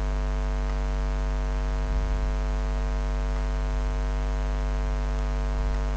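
Steady electrical mains hum: a low drone with a stack of evenly spaced overtones, unchanging in level.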